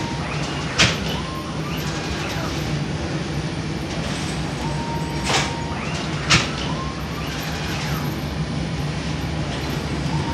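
Conveyor flatbread oven machinery running with a steady hum, with short squeaks recurring every few seconds and a few sharp clacks, about a second in and twice more around the middle.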